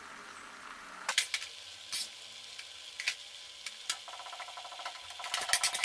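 A metal skimmer ladle clicks and scrapes against the pot and the rice as cooked basmati rice is spooned in, a few separate clicks with a quick cluster near the end, over a faint steady hiss. A faint mechanical hum joins about four seconds in.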